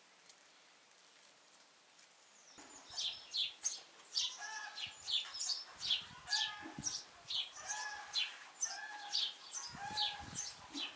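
Birds calling: a rapid series of short, high, falling chirps starts a few seconds in and keeps on, with short, steady lower notes mixed in every second or so.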